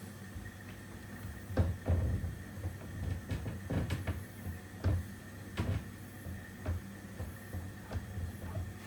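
A series of irregular knocks and clunks, like hard objects being handled and set down, starting about one and a half seconds in, over a steady low hum.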